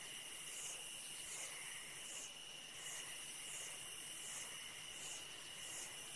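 Faint night chorus of insects: a steady high trill with a softer pulsing chirr above it, repeating about every three-quarters of a second.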